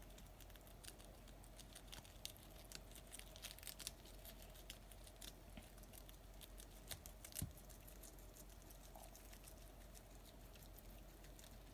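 Guinea pigs, a sow and her pups, munching lettuce and green pepper: a faint, steady scatter of small crisp crunches and rustles, over a faint steady hum.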